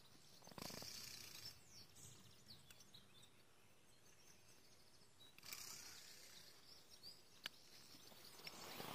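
Near silence: quiet outdoor ambience with a few faint bird chirps, two soft rustles and a single light click.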